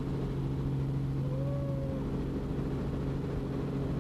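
Helicopter engine and rotor running steadily in flight, giving a constant low drone with a steady hum.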